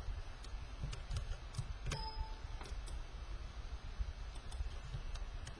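Computer mouse clicking now and then, sharp irregular clicks over a steady low background hum.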